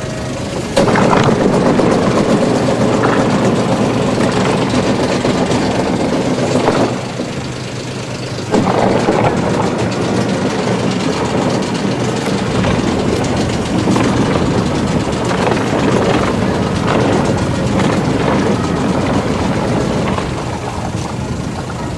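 Small fishing boat's engine running under way with water noise. It gets louder suddenly about a second in, falls back briefly around seven seconds, and comes up again near eight and a half seconds.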